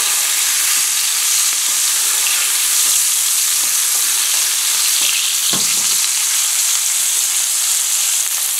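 Oil and butter sizzling steadily in a frying pan around a cod fillet being basted with a spoon, with a soft knock about five and a half seconds in.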